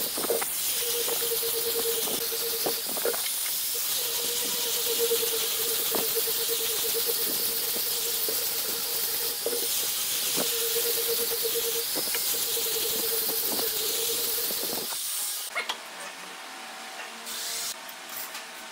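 Angle grinder fitted with a sanding disc, running and sanding the curved edge of a laminated wooden ring: a steady motor whine over a hiss of abrasive on wood, the whine dropping out now and then. About fifteen seconds in it cuts off abruptly, and quieter, brief scraping sounds follow.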